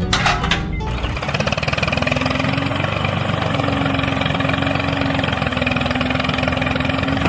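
A mini tractor's engine running steadily, with a fast, even pulse. A steady hum joins in about two seconds in.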